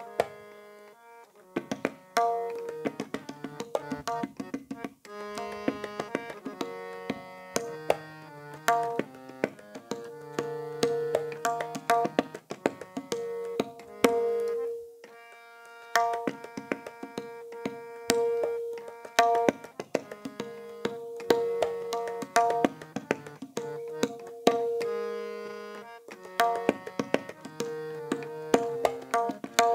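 Tabla solo: rapid sharp strokes on the tabla pair over a harmonium playing the repeating lehra melody in sustained notes.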